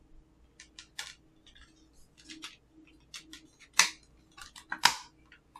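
A plastic Blu-ray case being handled: a string of small clicks and rustles, with two sharper clacks about a second apart past the middle.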